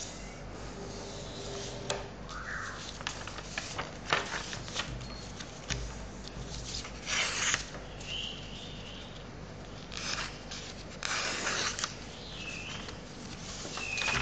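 A sheet of paper being handled, creased and torn along a fold to take off the excess strip, with rustling, small clicks and two longer tearing rasps about seven and eleven seconds in.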